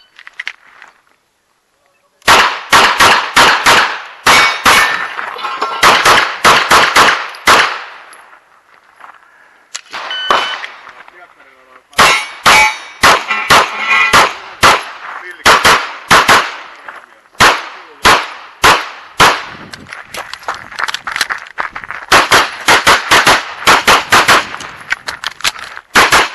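A semi-automatic pistol firing rapid strings of shots, several a second, starting about two seconds in. Short pauses separate the strings as the shooter moves between target arrays, and steel targets ring with metallic clangs as they are hit.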